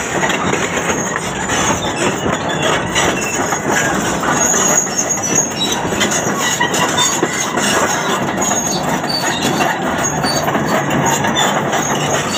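Heavy diesel machinery on the move: a bulldozer's steel crawler tracks clank and squeal without a break over the running engines.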